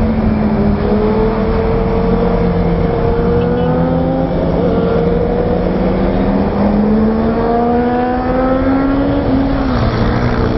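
KTM Duke's single-cylinder engine pulling under acceleration at road speed, its note climbing slowly and dropping back twice, about four and nine seconds in, as gears change, over a steady rush of wind.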